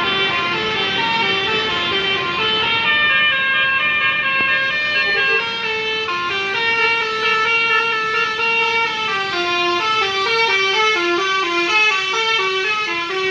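Bus 'telolet basuri' musical horn playing a tune: a continuous run of stepped notes, some short and some held, rising and falling in pitch with no break.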